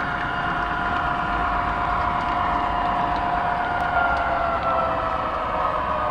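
O-gauge model train running along the track: a steady rolling noise with a whine of several tones that slowly drift lower in pitch.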